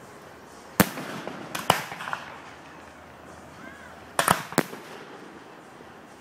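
Aerial firework shells bursting overhead: two groups of sharp bangs, the first about a second in and the second about four seconds in, each followed by a brief crackle.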